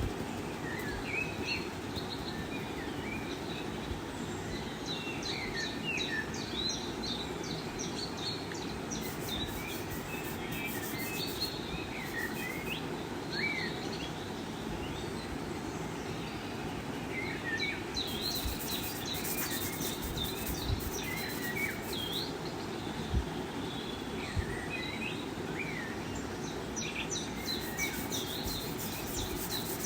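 Many small birds chirping and twittering over a steady background hiss. A high scratchy rustle comes and goes three times.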